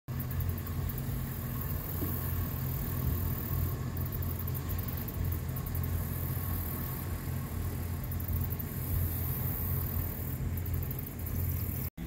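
Towboat's diesel engine pushing a barge, a steady low rumble with a few constant low hums; it cuts off abruptly just before the end.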